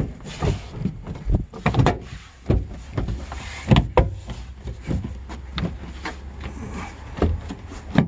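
Plastic rear side interior trim panel of a Toyota FJ Cruiser being pressed back into place by hand: an irregular series of sharp pops and knocks as its hidden push-in fasteners snap home, with rubbing and handling of the panel in between. The loudest pops come near the middle.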